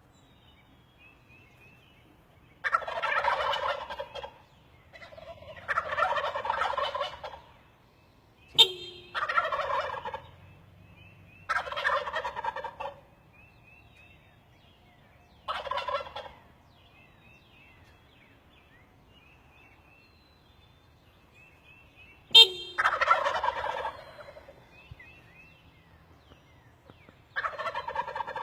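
Turkeys roosted in trees gobbling repeatedly: about seven gobbles of one to two seconds each, two of them starting with a sharp, loud onset. Faint high bird chirps come between the gobbles.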